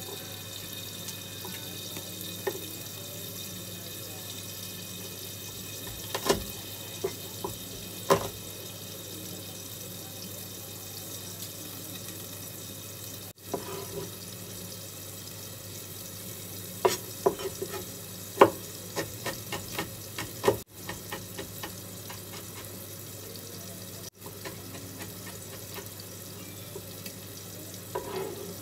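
Kitchen knife chopping on a wooden cutting board: a few separate knocks, then a quicker run of chops in the middle, over a steady background hum.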